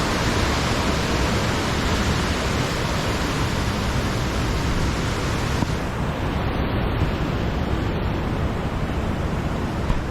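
Creek water rushing steadily: a constant, full hiss of fast-flowing water.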